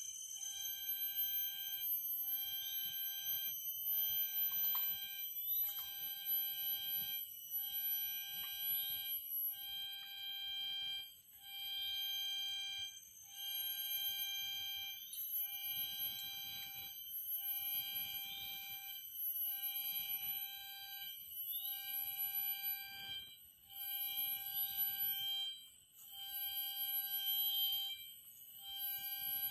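Tropical forest ambience: a pitched call, each note just under a second long, repeated about once every 1.2 s over a steady high-pitched insect drone.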